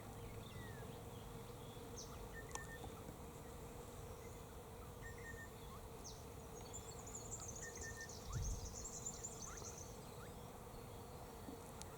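Faint, steady buzzing of bees, with scattered short bird notes and a high twittering bird trill for a few seconds in the middle. A dull low thump about eight and a half seconds in.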